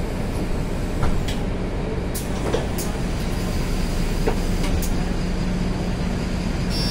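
Mercedes-Benz Citaro city bus idling at a stop, heard from inside the passenger cabin: a steady low engine hum with a few light clicks and knocks. A high electronic beep starts right at the end.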